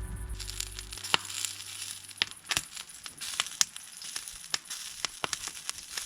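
Fire crackling in a washing-machine-drum fire pit, with irregular sharp pops and snaps over a faint hiss.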